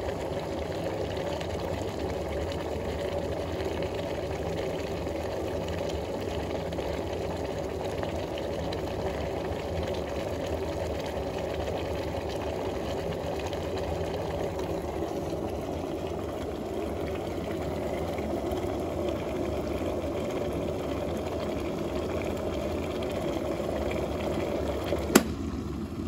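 Midea MK-12S03E stainless-steel electric kettle at a full boil with its lid open: a steady bubbling noise. A single sharp click about a second before the end, after which the boiling sounds a little quieter.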